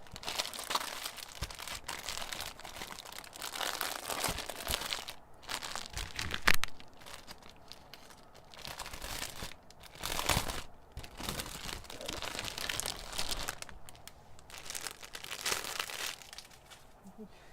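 Plastic packaging crinkling and rustling in irregular bursts as cross-stitch fabric pieces are unwrapped and handled, with one sharp tap about six and a half seconds in.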